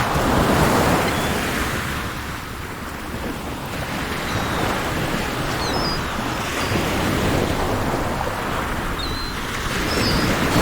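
Sea surf washing in, the noise of the waves swelling, easing off and building again, with a few short bird chirps over it.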